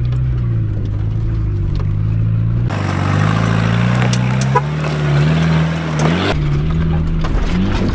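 Land Rover Discovery 300Tdi four-cylinder turbodiesel engine revving up and down under load in first gear as it crawls up a steep rocky climb. It is heard from inside the cab, then for a few seconds from outside, where a few sharp knocks come through.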